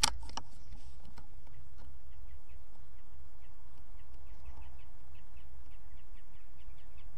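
Faint, quick bird chirps repeating a few times a second over a low, steady background rumble, with a small click at the very start.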